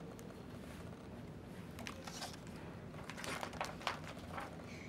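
Pages of a picture book being turned by hand: a few soft paper rustles and small crinkles in the second half of an otherwise quiet stretch.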